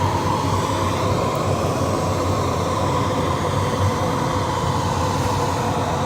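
Welding fume extractor running: a steady blower hum with a constant tone in it.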